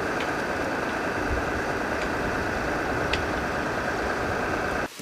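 A machine running steadily, a dense mechanical noise with a high steady whine over it, cutting off abruptly just before the end.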